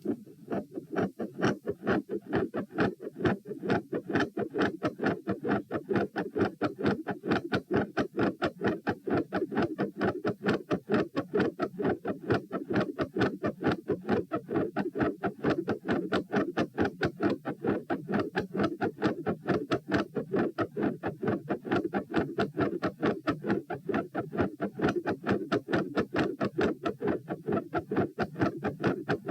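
Fast human heartbeat recorded on the chest, at about 132 beats a minute: each beat a pair of sharp clicks in a steady, rapid rhythm over a continuous low rumble. The recorder labels it a third heart sound with a fixed split second sound and a murmur.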